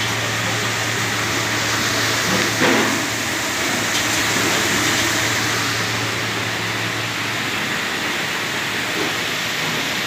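Commercial stainless-steel dishwasher running a descaling cycle: its wash pump drives hot water and acid descaler through the spray arms, a steady rushing spray over a low hum that drops out about seven seconds in.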